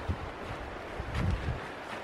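Wind buffeting the microphone, with a louder rumble a little after a second in, and a few light crunches and rustles of dry leaf litter underfoot.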